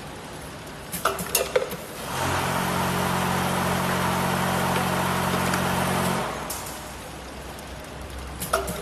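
Vibratory bowl feeder of a scoop feeding machine, buzzing steadily with the rattle of scoops moving in the bowl. It starts about two seconds in and stops about six seconds in, cycling on and off. A short clatter of clicks comes about a second in and again near the end.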